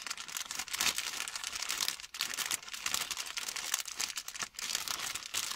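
Clear plastic packaging bag crinkling as it is squeezed and handled, an irregular crackle throughout.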